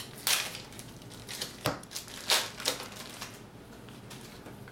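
Yu-Gi-Oh booster-pack foil wrappers and cards being handled: several short crinkling, rustling bursts, the loudest a little past two seconds in.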